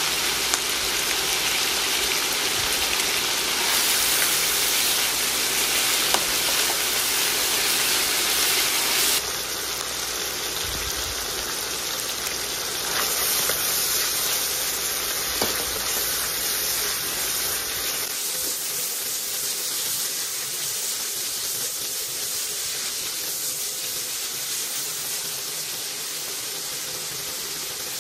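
Meat and sliced red onion sizzling in a hot wok, with a few sharp clicks of the spatula against the pan. The sizzle drops in level about nine seconds in and again around eighteen seconds in.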